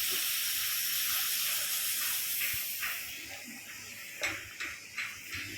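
Steel-cutting torch hissing steadily, fading after about three seconds, with a few short hisses near the end.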